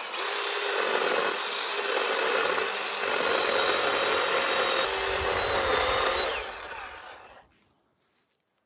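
Greenworks cordless electric chainsaw running steadily and cutting into a mesquite trunk, a constant motor whine over chain noise. About six and a half seconds in it winds down and stops.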